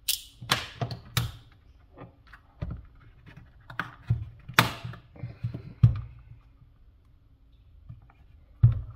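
Irregular sharp clicks, scrapes and knocks as the plastic case of a Lenovo ThinkPad Thunderbolt 3 dock is pried at with tweezers and a small tool and turned over in the hands, its inner plastic clips holding it shut. A quick run of clicks comes at the start, with a few louder knocks around the middle and just before the end.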